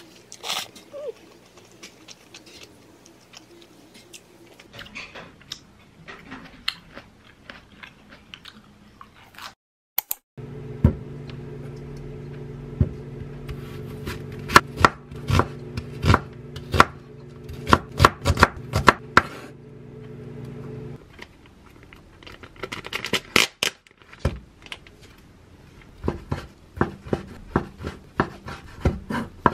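Chef's knife chopping an onion on a wooden cutting board: a run of sharp taps of the blade striking the board, with a steady low hum under the first stretch of cutting. After a short pause, a second run of knife taps as another ingredient is diced. Before the cutting, quiet eating sounds.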